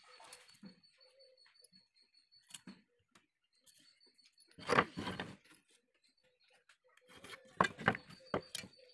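Quiet handling of a tape measure and wood on a plank workbench: a short clatter of clicks a little past halfway, then a few sharp knocks near the end as the tape measure and a wood block are set down on the boards.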